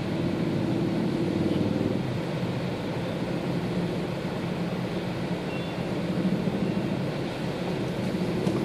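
Dense motorbike traffic: many small motorcycle engines running together in a steady drone as the bikes creep forward.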